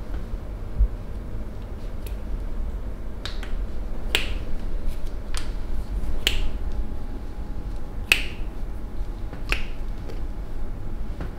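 Sharp snaps repeated about seven times, one to two seconds apart, each with a brief ringing tail, over a steady low hum.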